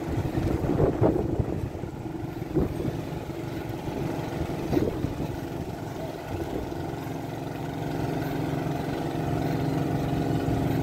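Large engine running steadily at idle, a low even hum that grows louder over the last few seconds.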